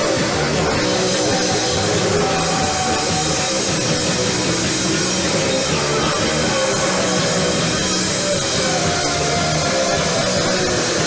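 Live rock band playing loud, with drum kit and amplified instruments.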